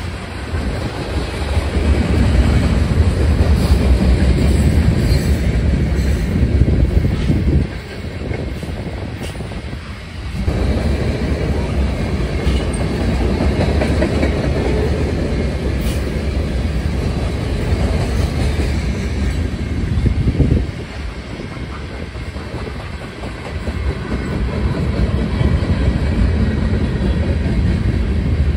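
Freight train's covered hopper cars rolling past close by: a steady, loud low rumble of steel wheels on rail with clickety-clack over the joints. The sound dips briefly twice, about a third of the way in and again about two-thirds through.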